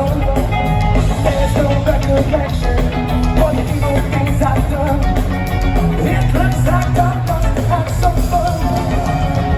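Rock music with a lead singer, loud and continuous.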